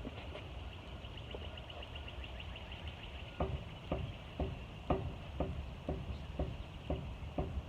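Front wheel assembly of a lifted 2012 Jeep Wrangler clicking as the raised wheel is levered up and down with a crowbar under the tire. It is quiet at first, then clicks about twice a second from about three seconds in. The owner takes the clicking for a worn wheel bearing rather than bad ball joints.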